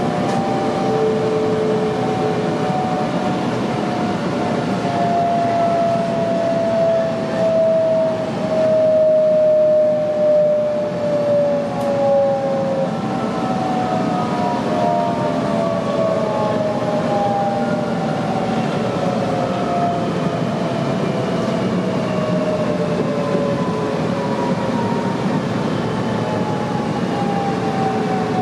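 Interior of a Sydney Trains M-set electric train: its traction motors whine in several tones that fall slowly in pitch as the train slows, over a steady rumble of wheels on the track.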